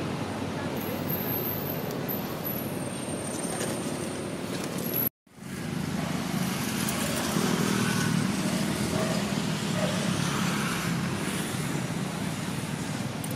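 Steady outdoor background noise with a low rumble, like distant road traffic, broken by a brief complete dropout about five seconds in.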